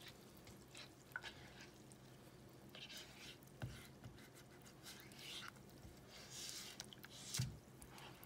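Silicone spatula stirring a thin flour-and-water batter in a nonstick pan: faint sloshing and scraping, with two soft knocks of the spatula against the pan, the louder one near the end.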